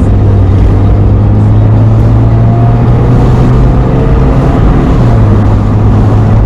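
Car driving: a loud, steady engine drone with road and wind noise, no change in pitch.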